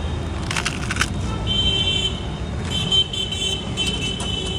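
Street traffic rumbling, with a vehicle horn sounding briefly about a second and a half in and then held for nearly two seconds from about the three-second mark. A few sharp metal clinks come about half a second to a second in.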